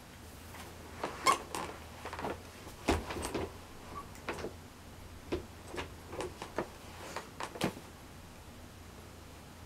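About a dozen irregular knocks and clicks, like something being bumped or handled, spread over six seconds above a faint low hum.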